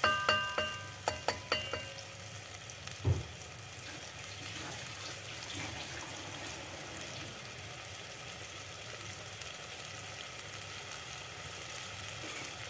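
A spatula knocks several times against the pot in quick succession, each knock ringing briefly, then a single dull thump about three seconds in. After that, a blended chilli, shallot and turmeric paste sizzles steadily as it fries in oil.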